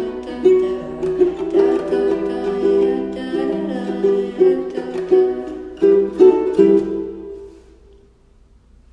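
Plucked string instrument played in strummed and picked chords, ringing on and then fading out in the last couple of seconds as the song ends.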